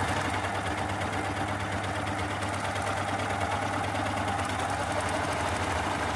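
Baby Lock Primo coverstitch machine running at a steady speed, sewing a standard cover stitch with its thread wipers locked out of action. A constant motor hum carries rapid, even needle strokes.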